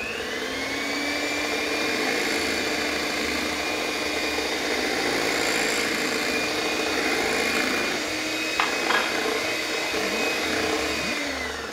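Electric hand mixer running steadily, its beaters whirring through cake batter in a glass bowl. It spins up at the start and winds down near the end, with a couple of short knocks about eight and a half seconds in.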